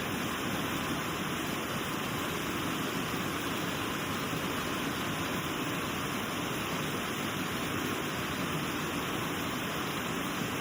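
Elk River waterfall: a steady, unbroken rush of falling and flowing water.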